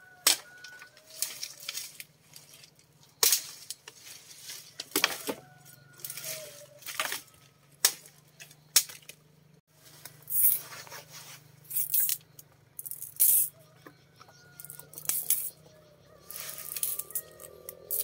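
Irregular clattering knocks of wooden pieces being handled and knocked together, about fifteen sharp strikes spaced unevenly, with faint short chirps between them.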